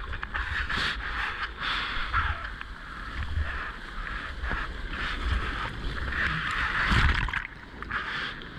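Rushing, splashing sea water around a whitewater kayak surfing a small breaking wave, with a low rumble of wind on the microphone. The rush swells to its loudest about seven seconds in, as whitewater breaks over the bow.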